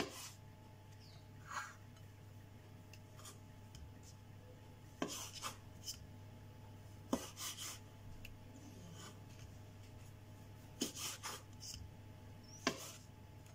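Kitchen knife cutting the ends off hot dog sausages on a wooden chopping board: short, sharp taps of the blade meeting the board, spaced irregularly, some in quick runs of two or three. A faint steady low hum lies under them.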